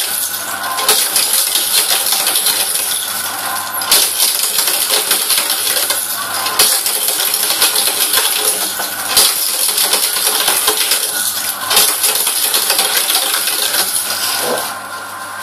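Office shredder crunching through items fed in one after another, over a steady motor hum. The loud crackling clatter starts afresh with a sharp crunch about every two and a half to three seconds, then dies down near the end.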